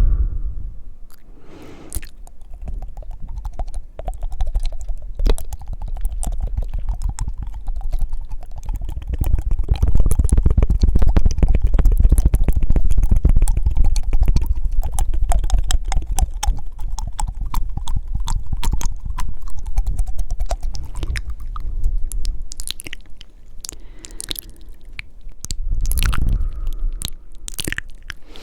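Close-miked ASMR mouth sounds: fast, wet tongue fluttering and mouth clicks with breaths, a dense rapid clicking through most of it that thins out into separate clicks near the end.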